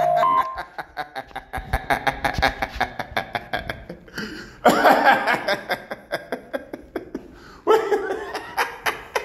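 A man laughing: a long run of quick, breathy snickers, then two louder bursts of laughter, one about halfway through and one near the end.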